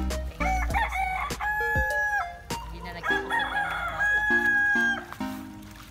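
Rooster crowing twice, each crow a long held call that drops at the end.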